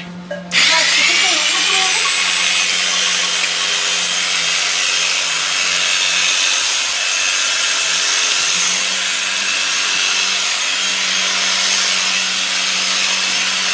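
Electric sheep-shearing handpiece switching on about half a second in and running steadily with a hum and a high whine as it clips a sheep's fleece.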